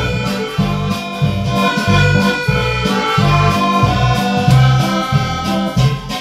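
Instrumental background music: sustained melody notes over a bass note pulsing about twice a second.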